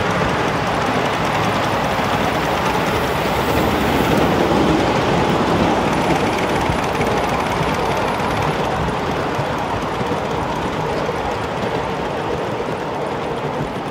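Steady running noise of a ride-on miniature railway train, its wheels rolling on the raised track's rails, heard from aboard the passenger car.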